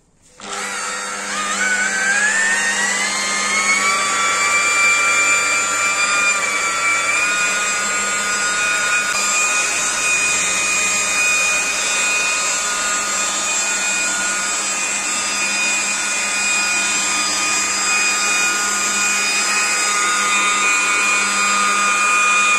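Makita rotary polisher cutting hard polish into car paint to take out scratches. Its motor starts about half a second in, and its whine climbs in pitch over the first few seconds as it spins up, then holds steady.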